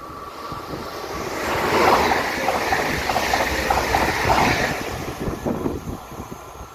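A double-deck Bombardier Regio 2N electric train passing at speed: the rush of the train and its wheels on the rails builds quickly, stays loud for about three seconds with a fast clatter of wheels over the track, then fades quickly once it has gone by.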